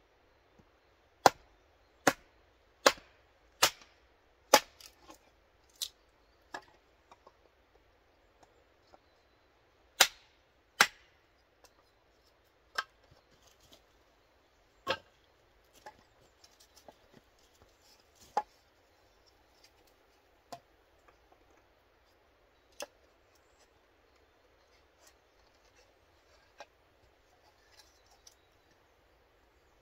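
Hatchet splitting kindling on a log chopping block: a quick run of five sharp, evenly spaced chops in the first few seconds, then a pair, then scattered single chops with fainter knocks in between.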